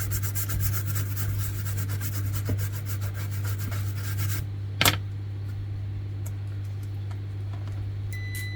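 Fast, dense scratching strokes of a hard tip rubbing on a surface for about four and a half seconds over a steady low hum, then a single sharp click, and a short high beep near the end.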